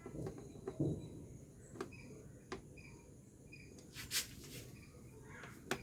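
Faint clicks and taps from handling the welding helmet while it is being measured, with a brief scraping burst about four seconds in. Small birds chirp in the background throughout.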